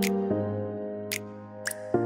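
Soft instrumental background music: sustained chords that change every half second or so, with a few light ticking percussion hits.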